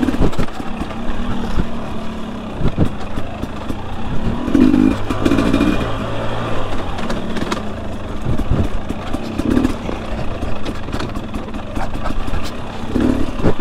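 Fuel-injected two-stroke single of a 2021 Husqvarna TE250i dirt bike running under way on a rocky trail, revving up in short surges a few times. Frequent knocks and clatter from the bike over rough ground.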